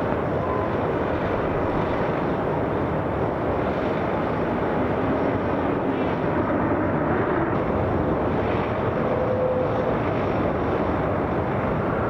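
Jet airliner engines running, a steady rushing noise with no breaks.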